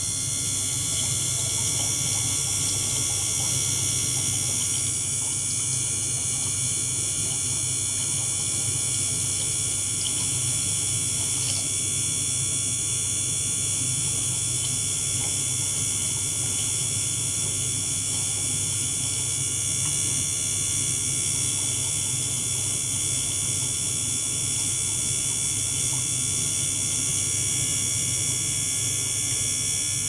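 Small liquid-circulation pump running steadily, its water churning and bubbling in a plastic bucket, with a low hum and several steady high-pitched tones.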